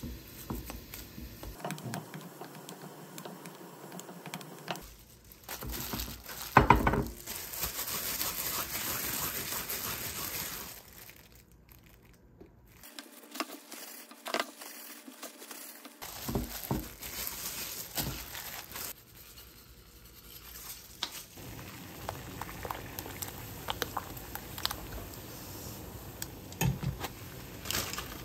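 Wooden chopsticks mixing rice with crumbled roasted seaweed in a glass bowl: crinkling, with sharp clicks of the chopsticks against the glass. In the later part, a pan of instant noodles bubbles in spicy sauce.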